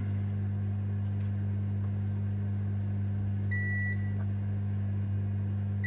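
Multimeter continuity beeper sounding a high, steady beep for about half a second three and a half seconds in, and again right at the end: the probes read a dead short (near zero ohms) on the laptop's backlight circuit. A steady low electrical hum runs underneath.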